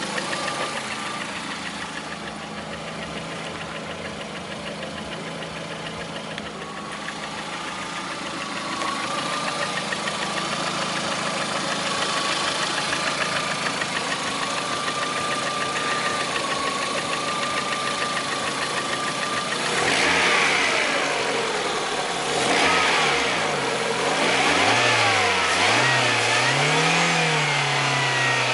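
Lada Priora's 21126 1.6-litre sixteen-valve four-cylinder engine idling steadily with a thin high whine, then revved up and down several times from about twenty seconds in. The owner reports a knock in this engine.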